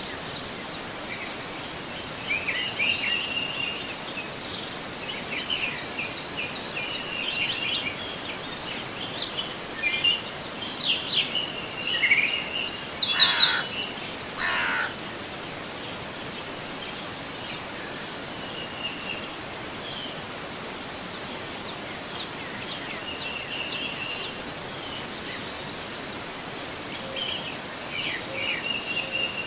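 Steady rush of a flowing forest river, with birds calling over it: many short chirps, busiest in the first half and again near the end, and two louder calls about halfway through.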